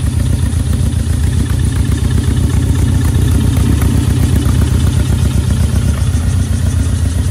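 Air-cooled VW Beetle flat-four engine idling steadily through a 4-into-2-into-1 exhaust with twin tailpipes: a loud, even run of fast exhaust pulses with no revving.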